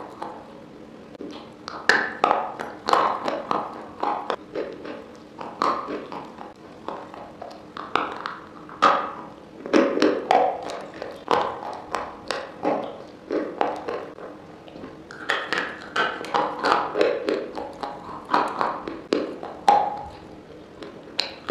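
Close-miked biting and chewing of a hard, chalky white chunk: sharp crunches in quick, irregular succession, several a second.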